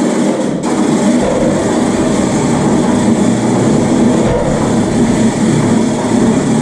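Engine of the machine lifting the beams, running steadily and loud close by.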